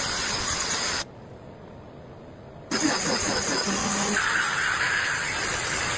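Steady noise of a power tool working wood. It cuts off abruptly about a second in and starts again just before the three-second mark.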